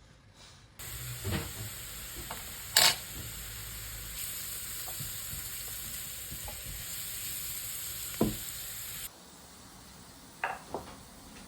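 Food frying in a pan, a steady sizzle broken by a few knocks of a utensil against the pan, one of them loud. The sizzle starts and stops abruptly, and a few faint clicks follow it.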